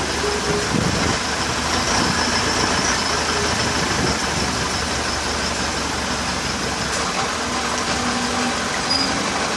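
Engine of a longtail tour boat running steadily while the boat is under way.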